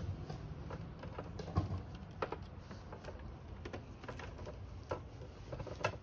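Scattered light clicks and taps of wires and plastic connectors being handled and pushed into place, with a soft knock about a second and a half in.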